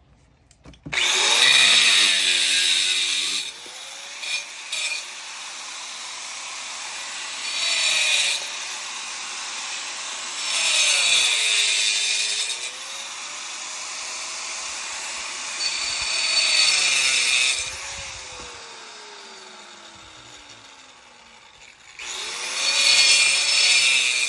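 Angle grinder cutting stack stone veneer in about five loud bursts. The motor's whine sags each time the blade bites into the stone and climbs back between cuts.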